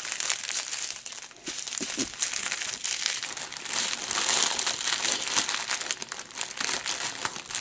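Clear plastic bags of diamond-painting drills crinkling continuously as they are handled and moved about.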